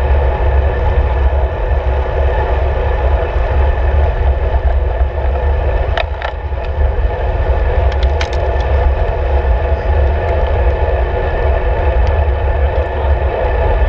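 Wind buffeting the microphone of a handlebar-mounted camera on a road bike, with tyre and road noise: a loud, steady rumble. A handful of sharp clicks come about six and eight seconds in.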